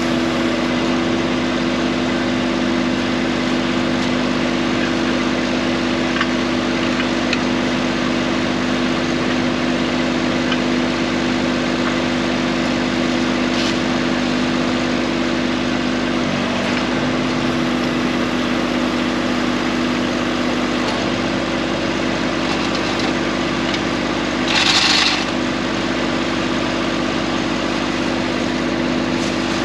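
Tractor engine running steadily at an even pitch, with a brief hissing noise about 25 seconds in.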